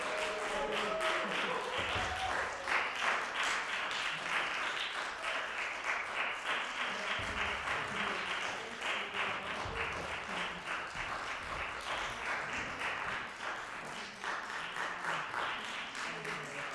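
Audience applauding: steady rapid clapping that eases off a little toward the end.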